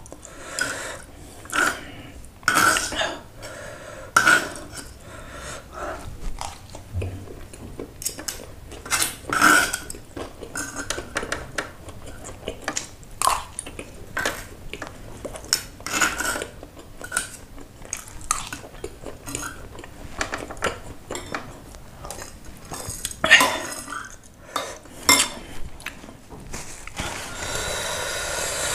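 Metal spoon and fork clinking and scraping against a stone mortar (cobek) while eating, in short irregular clicks and scrapes. A steady hiss near the end.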